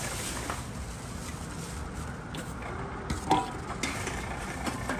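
Aluminium can being carried along the intake conveyor of a Tomra T-90 reverse vending machine, rattling and clinking over a steady low machine rumble, with one loud metallic clank about three seconds in.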